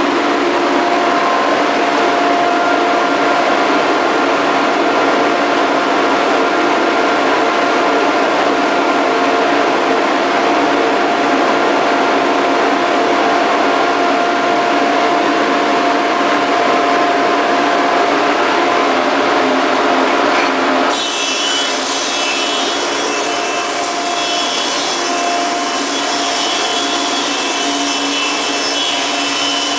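Grizzly G0544 planer running, its cutterhead planing a red oak board. About two-thirds of the way through the sound changes suddenly, a little quieter with a brighter, higher whine.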